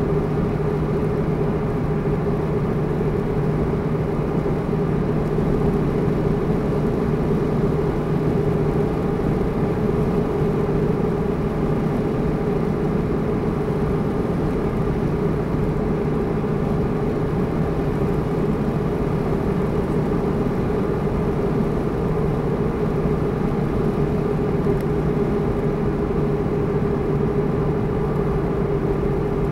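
A car's engine and road noise heard from inside the cabin while it cruises at a steady speed: an even, unchanging drone with no revving or gear changes.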